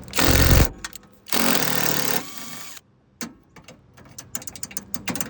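Skil brushless impact driver hammering on a fastener in two bursts, a short one at the start and a longer one of about a second and a half, followed by light clicks and rattles.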